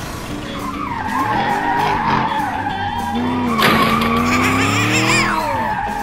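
Sports-car engine sound effect revving up, with tyres squealing from about halfway through, over background music.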